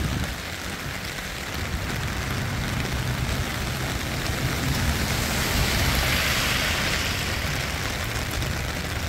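Torrential rain pouring down in a steady hiss that swells a little past the middle, with a low rumble underneath.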